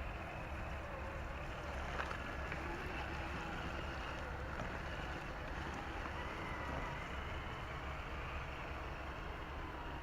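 Small electric motor and gears of a radio-controlled scale rock crawler whining, its pitch rising and falling as the throttle changes, over a steady rumble of background noise. A single sharp click about two seconds in.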